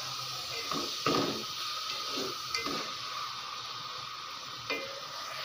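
Onions and ginger-garlic paste sizzling in ghee in an aluminium pot, with a slotted spatula stirring and scraping against the pot several times.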